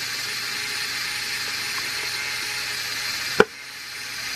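Lego Technic gear train driven by a medium-sized Lego electric motor, running with a steady whir of the motor and its meshing plastic gears. A single sharp click comes about three and a half seconds in, after which the whir dips and builds back up.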